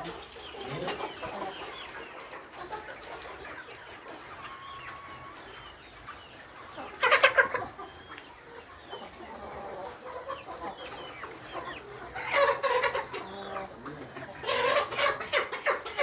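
A flock of caged brown laying hens clucking, with three louder bouts of calling: about seven seconds in, around twelve seconds, and near the end.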